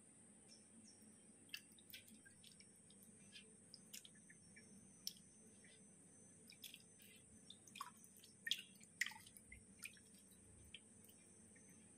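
Faint, irregular water drips and small splashes in a stainless-steel sink and metal bowl, with a cluster of louder ones about eight to nine seconds in.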